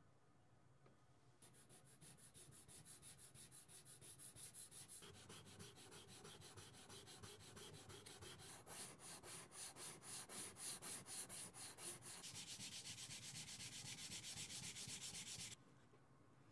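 Pearl-oyster-shell blade of a miniature knife rubbed back and forth on a coarse #140 diamond sharpening plate: faint, quick, even rasping strokes that begin about a second and a half in. Near the end the strokes run together into a continuous hiss that stops abruptly.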